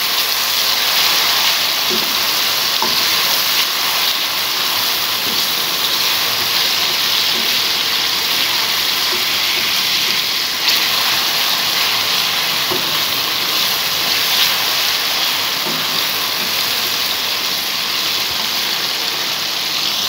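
Chopped tomatoes and onions sizzling steadily as they fry in ghee in an aluminium wok, with a few light scrapes and taps of a slotted spatula stirring them. This is the bhuna stage, where the masala is fried down for a few minutes.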